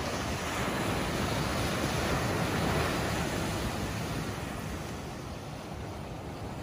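Ocean surf breaking on a sandy beach and shoreline rocks, a steady rush that swells about midway and then eases.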